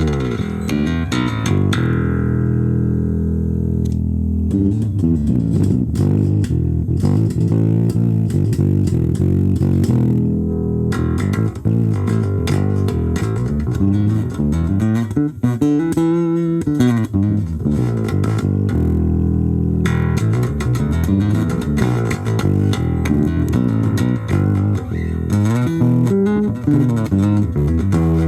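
Charvel four-string P-bass-style electric bass played through a VOX Soundbox Mini amp: a continuous run of plucked notes and bass lines, with a few notes sliding in pitch.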